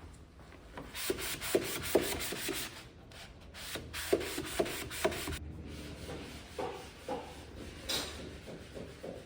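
Wood being worked by hand with quick back-and-forth rubbing strokes, typical of sanding. They come in two runs of about two strokes a second with a short pause between, then a few softer strokes.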